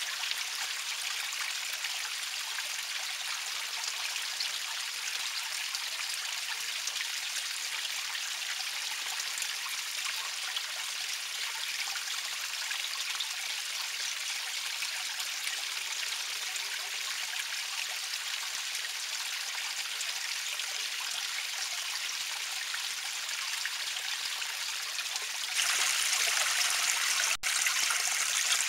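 Water running and trickling steadily over stones in a small garden water feature. It gets louder about 25 seconds in, with a brief break shortly after.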